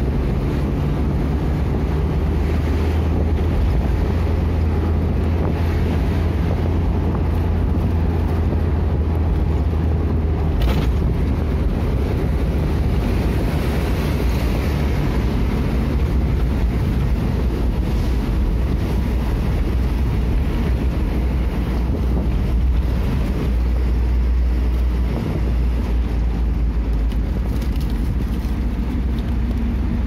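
Steady low engine and road rumble of a moving vehicle, heard from inside its cabin, with a brief click about ten seconds in.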